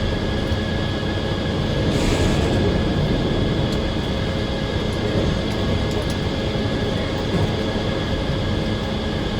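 Circular sawmill running steadily, a machine drone with a few steady whining tones.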